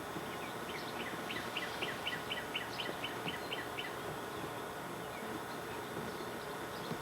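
A bird calling: a run of about a dozen short, high repeated notes, about four a second, lasting some three seconds. Steady outdoor background hiss runs underneath.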